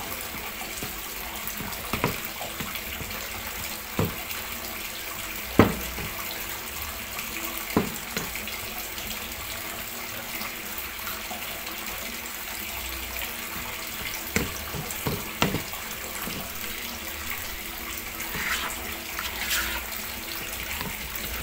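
Stone pestle mashing tofu in a plastic bowl: a few sharp knocks of the pestle against the bowl, the loudest about five and a half seconds in, over a steady hiss. Near the end a spatula scrapes through the mash.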